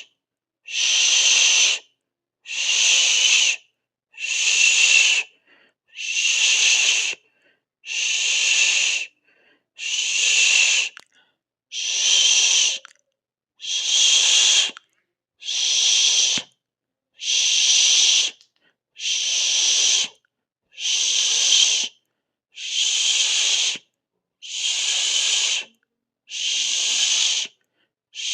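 A person hissing 'sss' over and over in a steady rhythm, each hiss about a second long with a short silent gap, roughly one every 1.7 seconds.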